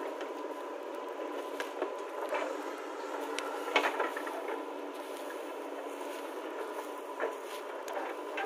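JCB 3DX backhoe loader running and working, a steady machine hum with a handful of scattered sharp knocks as the bucket digs and drops soil, the loudest about four seconds in.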